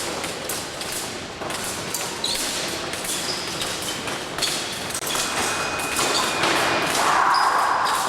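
Épée fencing bout: feet thudding on the piste and sharp clicks with short high rings, typical of blades meeting, over a steady hall hubbub. A high steady tone holds for about a second and a half past the middle.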